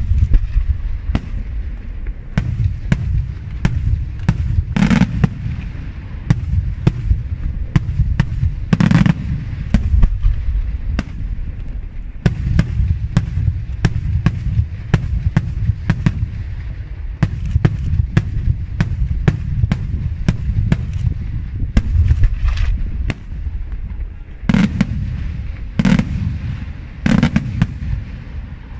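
Daytime fireworks going off in a rapid, continuous barrage of sharp bangs and cracks, several a second, over a steady low rumble. Heavier booms stand out about five and nine seconds in and again in a cluster near the end.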